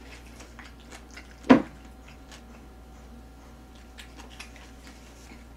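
Quiet eating sounds: a spoon and chopsticks clicking against a ceramic bowl, with soft chewing. One short, louder sound comes about a second and a half in.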